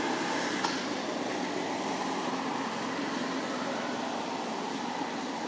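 Steady outdoor background noise, an even hum and hiss with no clear single source, with one faint click about half a second in.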